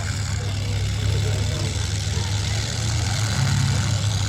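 Demolition derby cars' engines idling together, a steady low rumble that swells a little in the second half.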